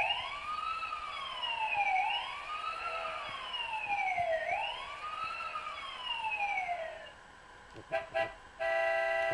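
Electronic siren from a children's sound book's button panel, wailing up and down in pitch three times, about two and a half seconds per cycle, then stopping about seven seconds in. A couple of short blips follow, and a steady electronic horn tone starts near the end.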